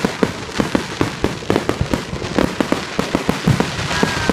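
Fireworks going off in a rapid, continuous barrage of loud bangs and pops, several a second, overlapping one another.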